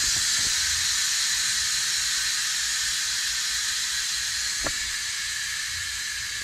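Compressed air hissing steadily out of Air Lift 7500XL air springs as the system deflates them from 20 to 5 psi, slowly easing off in level.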